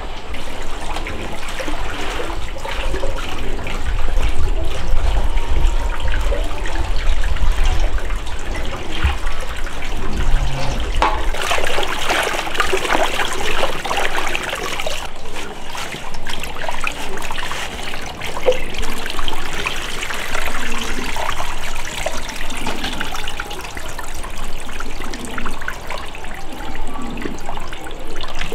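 Water running and splashing steadily, with a low rumble underneath for roughly the first third.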